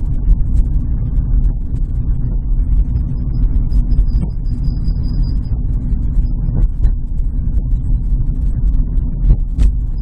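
Steady road and drivetrain rumble inside a 2008 Seat Ibiza's cabin at low speed, with a few short knocks. A faint, thin, high-pitched squeal comes in about three seconds in and fades after a couple of seconds: the rear brake dragging and squealing with the brakes not applied.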